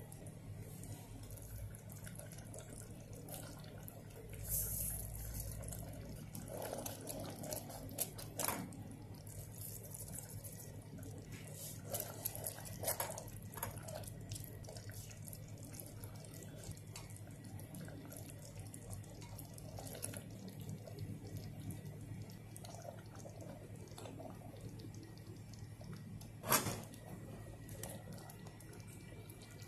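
Thick demi-glace sauce simmering and bubbling as it reduces in a stainless steel pot, stirred with a silicone spatula. Scattered clicks and knocks of utensils against the pot sound over a steady low hum, the loudest knock near the end.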